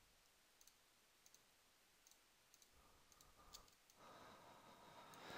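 Near silence: faint room tone with a few soft, scattered computer mouse clicks.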